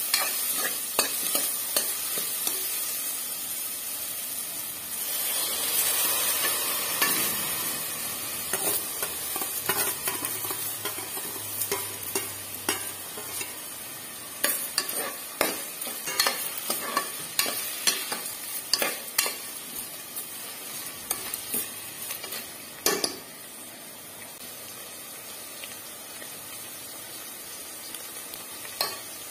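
Food sizzling as it fries in a pan, with a spatula stirring and knocking against the pan. The sizzling swells briefly about five seconds in. The stirring mostly stops about seven seconds before the end, leaving a steady sizzle.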